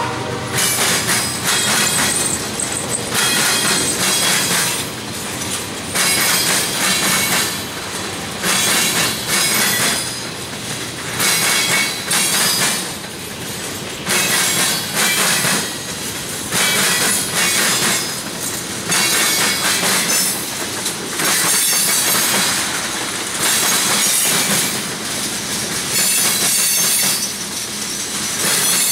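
Freight car wheels banging over a railroad diamond crossing as a long train rolls through: a loud metallic clatter about every two seconds as each set of wheels hits the crossing frogs.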